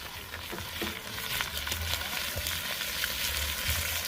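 Steady crackling sizzle: a hiss full of many small, quick pops, as of food or wood over heat at a camp.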